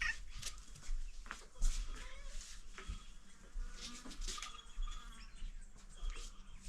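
Faint animal calls with scattered light clicks.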